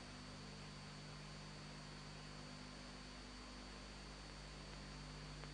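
Faint steady electrical hum with hiss and a thin high whine: the background noise of the film's soundtrack, with nothing else happening.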